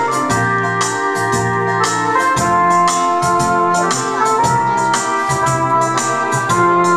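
Electronic keyboard being played: long held notes and chords over a steady beat.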